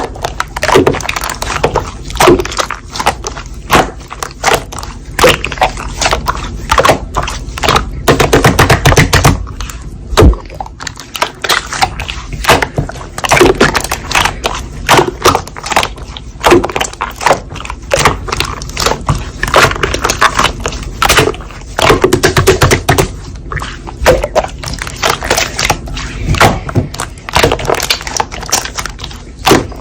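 Hands squishing and poking slime: dense bursts of sticky clicks and pops, a new burst about every second.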